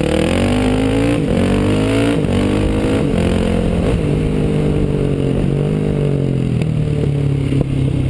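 Dirt bike engine pulling through the gears, its pitch climbing and then dropping at each shift several times in the first few seconds, then settling to a steady note. Wind rushes over the helmet-mounted microphone.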